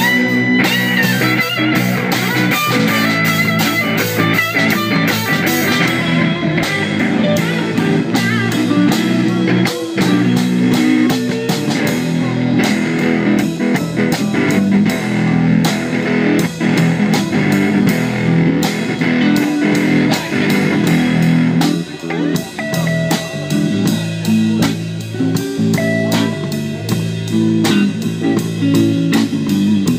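Live blues-rock band playing an instrumental passage: guitar over a drum kit keeping a steady beat, with no vocals.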